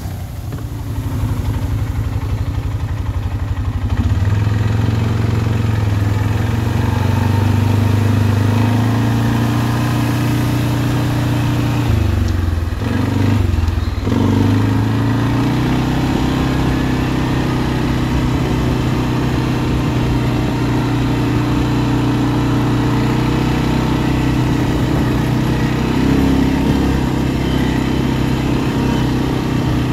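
ATV engine running steadily under way, its pitch dipping and then climbing again about twelve seconds in as it slows and picks up speed.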